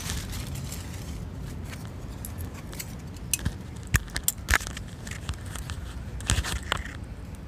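A blister strip of tablets being handled, giving a few sharp crinkles and clicks from about three seconds in. Underneath is a steady low rumble of wind on the microphone.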